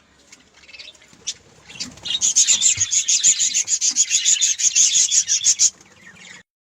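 Budgerigars chattering: a few quiet chirps, then from about two seconds in a fast, loud run of high chirps that stops about a second before the sound cuts out.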